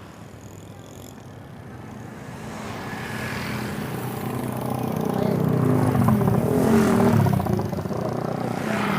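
Motor vehicle traffic passing close by on a road bridge: engine noise builds over several seconds, is loudest about six to seven seconds in, then eases as the vehicle goes by.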